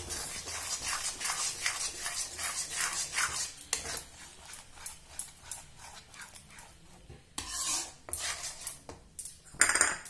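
Slotted metal spatula scraping and stirring a thick gravy paste in a metal kadhai: a run of quick strokes, about two or three a second, thinning out later, with one louder scrape near the end.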